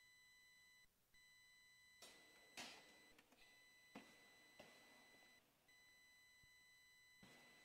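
Faint steady high-pitched electronic tone with overtones, cutting out briefly about a second in and again around five and a half seconds in. Several faint knocks and thuds fall between about two and five seconds in, and one more comes near the end.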